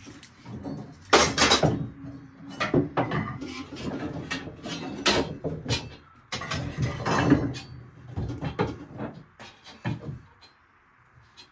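Metal kitchen utensils clattering and scraping against wooden cupboard shelves as they are rummaged for and pulled out: an uneven string of knocks and rattles, with louder clanks about a second in and again around five and seven seconds, then quieter near the end.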